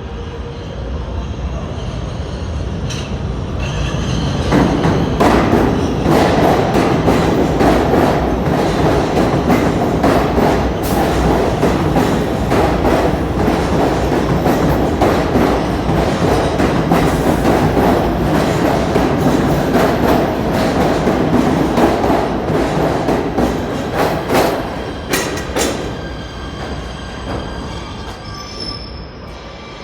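PATH PA5 train arriving at the platform. Its rumble builds about four seconds in and stays loud with repeated sharp clicks of the wheels over rail joints, then dies away as it slows near the end.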